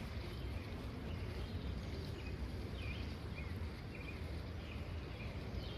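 Steady low outdoor rushing noise with a few short, high bird chirps scattered through it.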